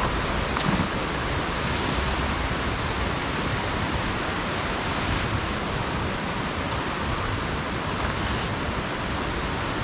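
Heavy rain falling in a steady, dense hiss, with a few brief ticks from drops striking nearby.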